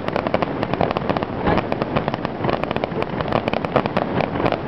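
Aerial fireworks display in a continuous barrage: many shell bursts and crackling stars per second, overlapping into a dense run of bangs and crackles.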